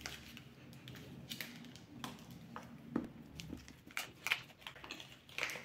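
Soft scattered clicks and crackles of a plastic snack-bar wrapper being handled while a vegan chocolate bar is bitten into and chewed, with a few sharper clicks about three and four seconds in.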